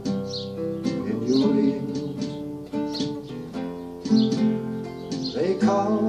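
Acoustic guitar playing an instrumental passage, with a Roland electronic hand-percussion pad tapping out light hits over it.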